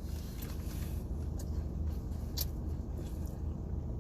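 Steady low hum inside a car, with a couple of short sharp clicks.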